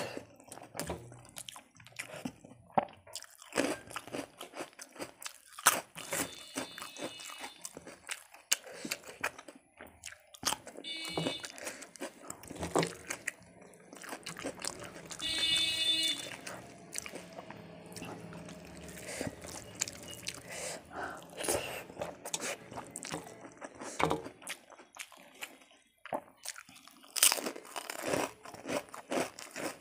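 Close-up eating sounds: fingers mixing and scooping food on a metal plate, and crunchy, wet chewing and biting, with many short irregular clicks.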